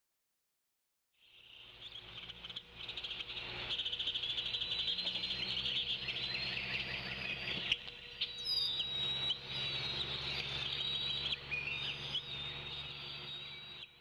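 Woodland birds singing and calling together in a dense chorus of chirps, trills and whistles, with an insect-like shrill trill beneath them. The chorus begins about a second in, over a low steady hum.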